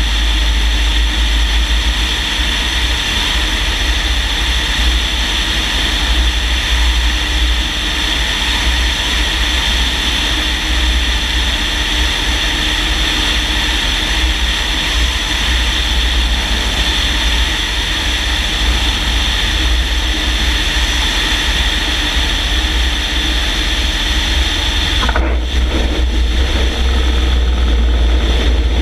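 Wind rushing over a wing-mounted microphone above the steady drone of a light single-engine propeller plane's engine, as it descends on final approach to land. Near the end the sound briefly breaks as the wheels touch down on the runway.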